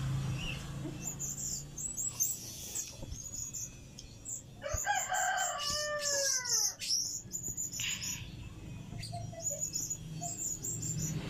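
A rooster crows once, about five seconds in: a call of a couple of seconds that ends in a long falling glide. Short high-pitched chirps come and go throughout.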